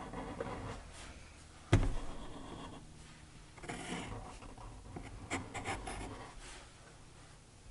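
A felt-tip marker and a pencil drawing on paper in short scratchy strokes, with one sharp tap a little under two seconds in.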